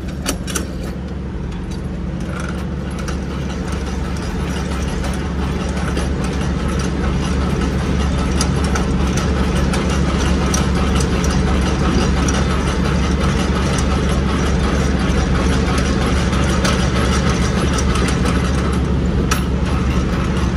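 Semi-trailer landing gear being hand-cranked down, with repeated light clicking and rattling from the crank and gearbox. This is the step of lowering the legs before the trailer is dropped. Under it runs the steady idle of a diesel truck engine.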